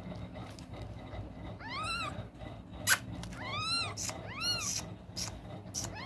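Newborn kitten crying three times, each a high thin cry that rises and falls in pitch, as it searches for its mother's teat to nurse. Several sharp clicks in between, the loudest about three seconds in.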